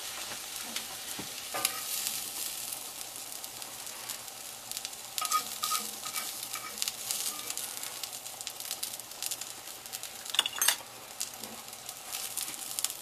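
Egg white frying in herbed olive oil in a cast-iron skillet: a steady sizzle. A few short clicks and scrapes of a metal fork and the tin mould against the pan come about a second and a half in, around the middle, and again a few seconds later.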